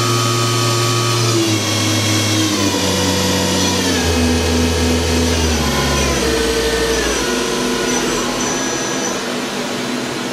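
2009 Doosan DNM 400 vertical machining center's spindle being stepped down from its 8,000 rpm maximum. Its whine drops in pitch in distinct steps about every second or so, and grows slightly quieter near the end.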